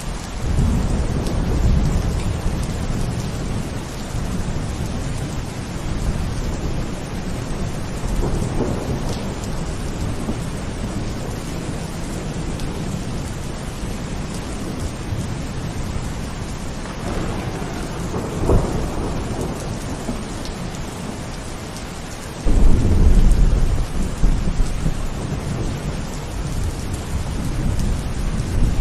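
Steady rain with thunder rolling over it: a rumble as it begins, fainter rolls through the middle with one sharper crack, and a loud, sudden clap about three-quarters of the way through that rumbles on.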